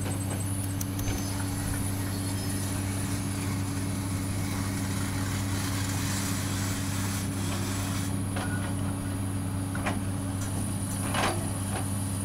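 Large engine of a heavy machine running steadily at a constant speed, with an even hum that neither rises nor falls.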